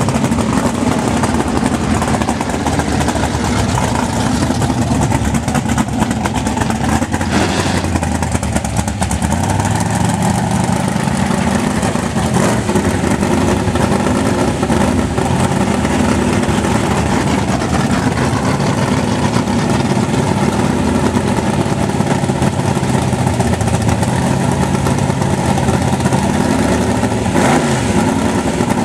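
A 1000-horsepower drag-race engine in a 1950s Chevy drag car idling loudly while the car creeps along. Its pitch rises and falls with light throttle blips several times, with a quick rev near the end.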